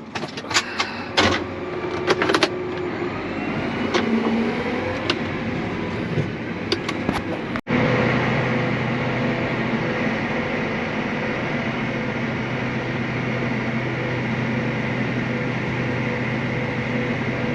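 A vehicle engine running steadily, with a few sharp clicks and knocks in the first couple of seconds. About halfway through the sound cuts out for a moment, then a steadier, even engine hum continues.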